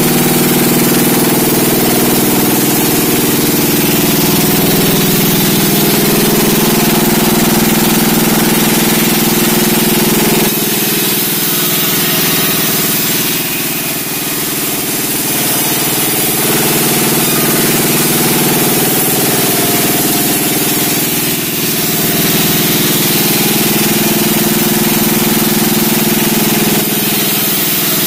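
Engine-driven sawmill running steadily, a loud machine drone with a constant noisy hiss above it. The tone changes about ten seconds in, and the level dips briefly twice after that.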